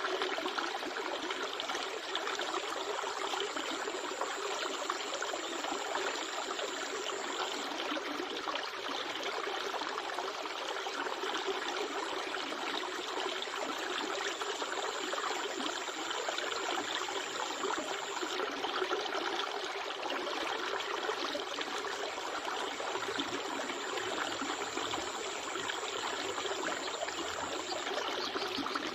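Steady rushing of flowing river water. A thin, high steady tone sounds over it three times, each for several seconds.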